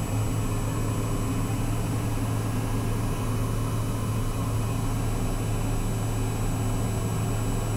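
Daher TBM 910's PT6A turboprop engine and propeller idling on the ground, a steady drone with a low hum under an even hiss, heard from inside the cockpit.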